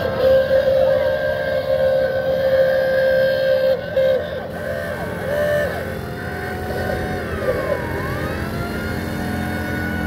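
Horns of small parade cars honking: one long honk held for nearly four seconds, then short honks. About seven seconds in, a siren-like wail falls and rises.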